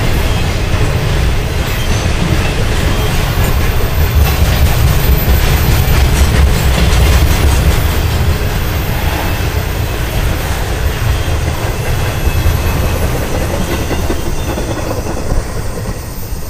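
Two trains passing at once: the cars of a BNSF intermodal container freight train rolling by below while Amtrak bilevel passenger cars cross a railway bridge overhead. It is a steady low rumble of wheels on rail that eases off near the end as the trains clear.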